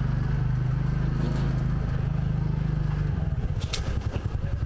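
Motorbike engine running steadily under way. About three seconds in, its note drops to a slower, pulsing beat, with a few short clicks just after.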